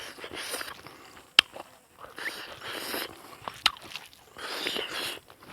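Close-up chewing and eating sounds of a person eating a meal, in short noisy bouts, with a sharp click about one and a half seconds in and another about two-thirds of the way through.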